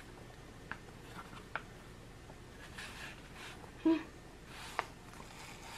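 Paper birthday-card envelope being opened and handled by a child's fingers: faint rustling with a few light clicks, and a brief voice sound about four seconds in.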